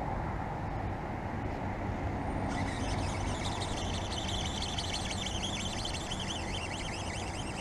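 Steady rumble of road traffic. About two and a half seconds in, a high, wavering chatter starts and carries on.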